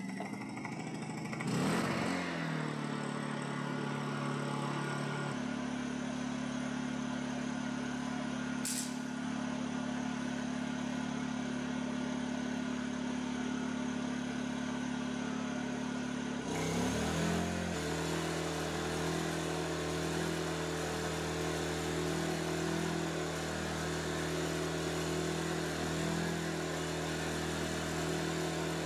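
Honda EU2000i inverter generator running just after starting, its engine speed rising and settling in the first few seconds. About sixteen seconds in its note changes to a deeper, busier pattern, then runs on steadily.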